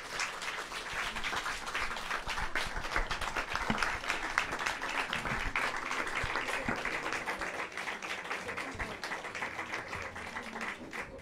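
Audience applauding: steady, dense clapping from a full room, easing off slightly near the end.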